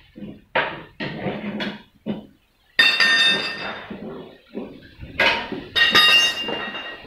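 Steel tyre levers knocking and clanking against a motorcycle wheel rim and the concrete floor while the tyre is being pried off the rim: a few short knocks, then about three sharp clanks that ring on briefly.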